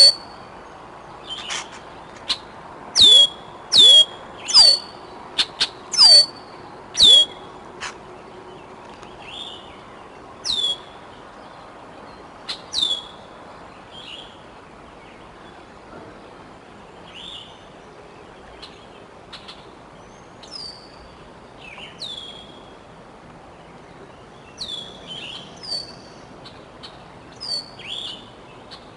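Juvenile bald eagle giving a series of sharp, high chirping calls, each dropping quickly in pitch, typical of a fledgling food-begging. The calls come loud and close together in the first few seconds, then fainter and further apart.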